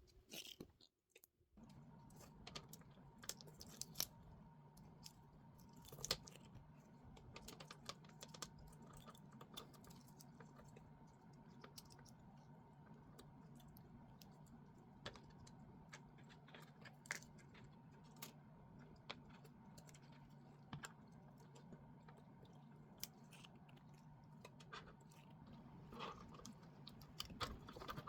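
Near silence: scattered faint clicks and light taps from handling small parts, over a faint steady hum.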